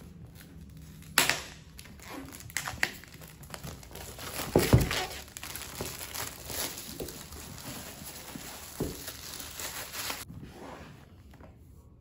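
Clear plastic shrink wrap being torn and peeled off a cardboard box, crinkling and crackling continuously. It starts with a sharp rip about a second in, is loudest around the middle, and stops abruptly near the end.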